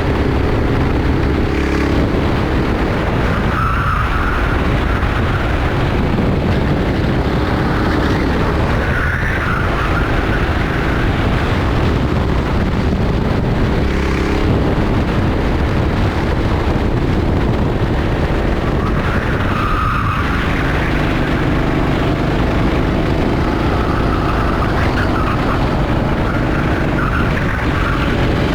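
Rental racing kart engine running hard and continuously, its note dipping and climbing again about every five seconds.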